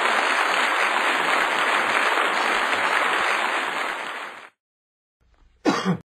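Steady rushing noise that cuts off suddenly about four and a half seconds in, then a short sound falling in pitch near the end.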